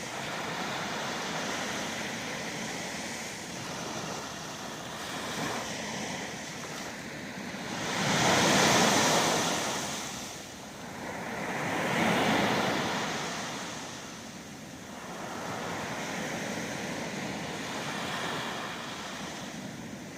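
Sea waves washing onto the shore in a steady rushing wash, with two louder surges of breaking surf about eight and twelve seconds in.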